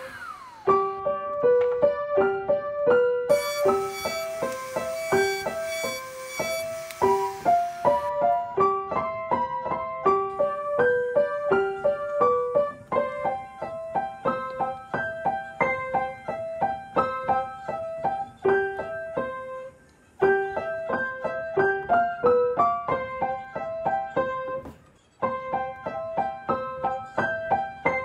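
Background piano music: a light melody of short, evenly paced notes, breaking off briefly twice in the second half.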